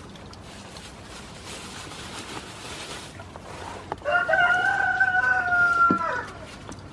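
A single loud animal call, held for about two seconds and dropping in pitch at the end, starting about four seconds in.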